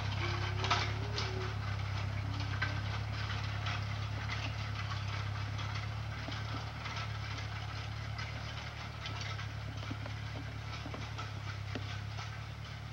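Ford 8N tractor's four-cylinder engine running steadily as it pulls a cultivator down the rows, fading slightly as it moves away. A sharp click comes less than a second in.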